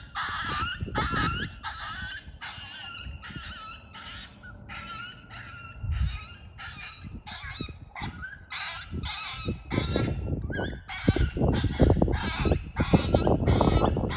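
Predator call playing animal distress cries for calling coyotes: a steady run of short, wavering, honking squeals, about two a second. A low, buffeting rumble grows louder under the cries from about nine seconds in.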